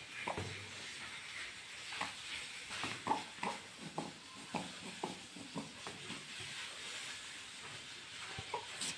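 Faint, scattered soft taps and rustles of a rubber balloon being moved and brushed against a baby and a blanket, over a low steady hiss.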